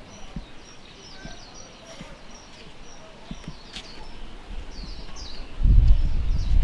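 Small birds chirping in the background in short, high calls. About five and a half seconds in, a loud low rumble sets in and drowns out the rest.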